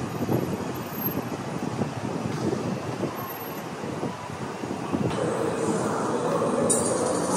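Subway train running: a rumbling noise full of short knocks, with a steady whine joining about five seconds in as it grows louder.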